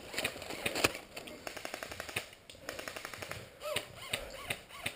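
Airsoft electric gun, an AK-47S-style CYMA CM042S, firing a fully automatic burst of about a second as a rapid, even stream of clicks. Scattered single clicks and snaps follow later.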